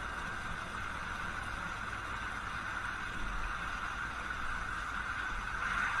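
Steady rushing roar of a violent windstorm, swelling slightly near the end.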